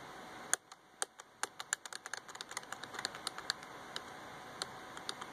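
Rapid, irregular clicking of computer keys as a weather-model forecast map is stepped forward frame by frame; the clicks come thickest in the first few seconds and thin out towards the end.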